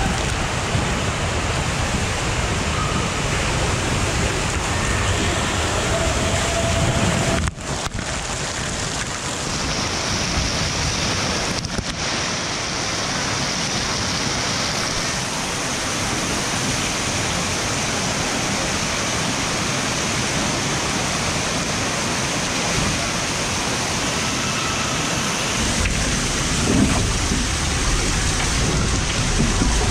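Water rushing along an open flume waterslide as a rider slides down it: a steady hiss of running water, with short dips about seven and a half and twelve seconds in.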